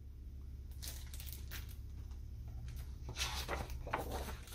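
Faint rustling of a picture book's paper page being turned by hand, a few soft swishes.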